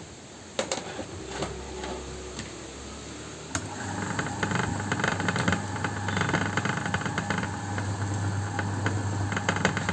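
Table-top wet grinder switched on with a sharp click a few seconds in, then its electric motor running steadily with a hum as it drives the drum through a newly fitted belt. The motor runs smoothly under load, a sign that the motor capacitor is fine and the belt is at correct tension.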